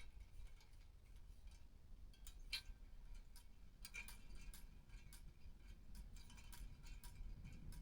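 Faint, irregular light ticking of a novelty windmill's drummer figure tapping its drum as the windmill turns.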